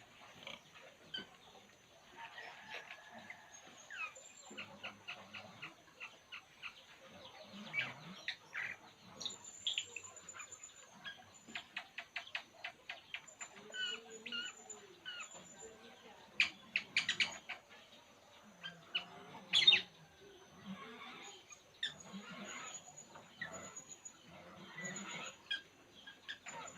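A pet songbird (Indonesian 'burung puling') chirping in short scattered notes and calls, with the loudest sharp call about twenty seconds in. A faint steady high whine runs underneath.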